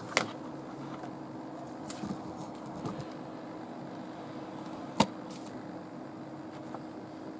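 Handling noise from the speaker bar and camera: two sharp clicks, one just after the start and one about five seconds in, with a few faint taps between, over a steady low hum in the room.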